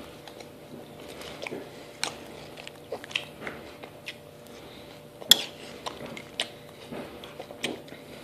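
A person chewing and crunching a mouthful of strawberry frosted mini wheats cereal, in irregular crunches, with a sharp click about five seconds in, over a faint steady hum.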